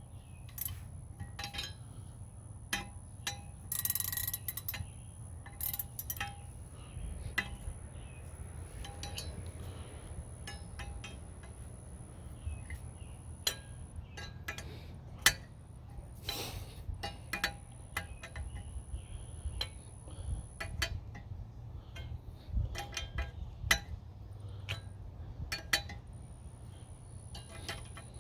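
Irregular metallic clicks and clinks of steel wrenches and brass parts being handled while a vintage gas blow torch lamp is taken apart.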